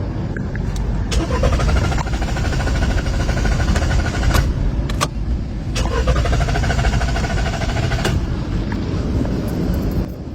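Car engine being cranked by the starter motor in two attempts, a fast rhythmic pulsing churn about four seconds and then about two seconds long, each attempt ending in a sharp click.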